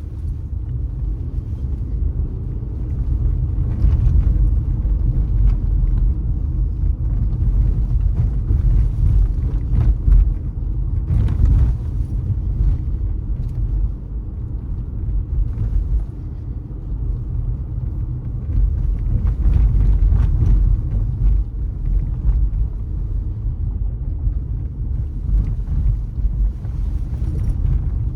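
Car driving along a city street: a steady low rumble of engine and tyres on the road, with a few brief knocks from the road surface.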